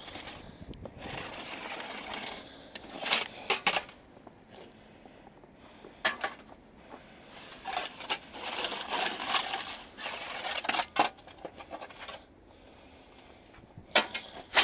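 Snow shovel scraping and crunching through snow in long strokes, with a few sharp knocks in between.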